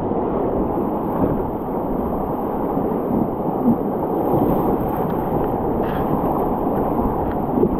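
Steady rush and splash of whitewater rapids around an inflatable kayak, heard close to the water.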